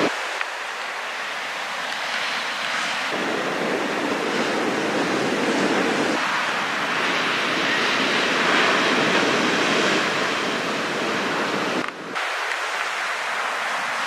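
Ocean surf: small waves breaking and washing up a sandy beach in a steady rush, with wind on the microphone. The sound shifts abruptly a few times, about three, six and twelve seconds in.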